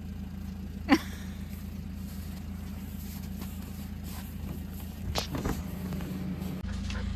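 Kei truck engine idling with a steady low hum. A single short, sharp sound cuts in about a second in, and a few brief voice-like sounds come about five seconds in.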